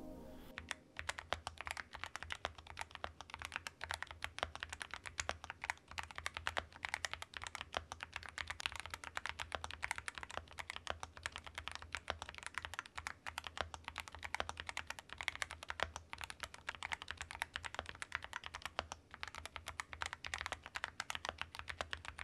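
Typing test on a YUNZII AL66 mechanical keyboard: an aluminium case with a polycarbonate plate and factory-lubed YUNZII Milk switches. The keys are struck in a fast, continuous run of clicks that starts about half a second in.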